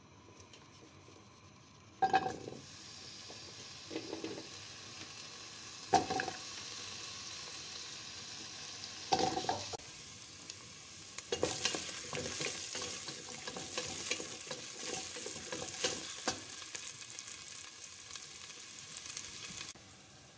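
Carrot pieces sizzling as they are sautéed in hot oil in a stainless steel pot. A loud clunk about two seconds in starts the sizzle, and a few more clunks follow. About halfway through, the sizzle grows louder, with quick clicks of stirring against the pot.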